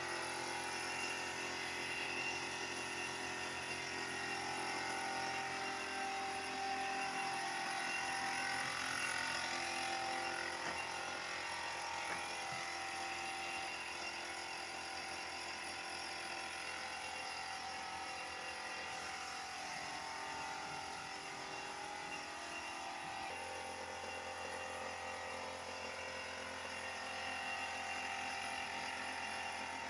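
A machine running steadily, its hum and hiss holding throughout, with the tone changing a couple of times.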